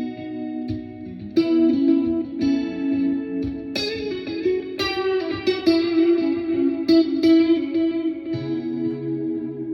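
Clean electric guitar played through the neck pickup of an EVH Frankie, a run of picked chords and notes, each struck about a second or so after the last and left ringing into the next.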